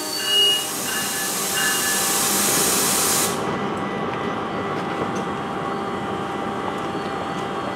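Loud hiss of compressed air from a stopped NJ Transit commuter train, which cuts off suddenly about three seconds in. A steady hum with faint held tones from the standing train carries on underneath.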